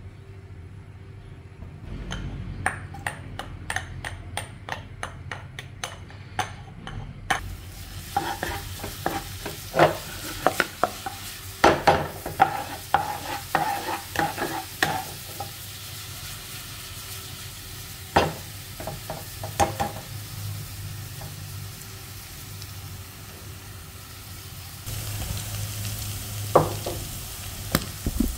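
Chopped garlic sizzling in hot oil in a nonstick wok, with a spatula stirring and knocking against the pan. A series of sharp taps comes first; the sizzle starts about a quarter of the way in and grows louder near the end.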